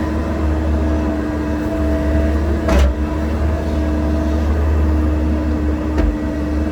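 Excavator's diesel engine running steadily under load while digging, with a sharp clank about three seconds in and a lighter one near the end.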